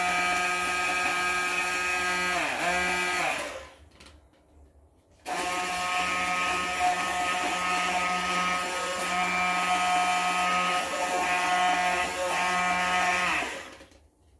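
Hand-held immersion blender motor whining steadily as it purees spruce or fir needles with a little water in a cup. It stops a few seconds in, starts again after about a second and a half, and runs until it cuts off near the end. Its pitch dips briefly now and then as the blade meets the needles.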